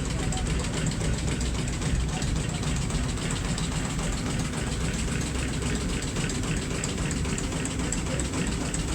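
Steamboat's reciprocating steam engine running steadily, with a fast, even mechanical clatter over a low hum.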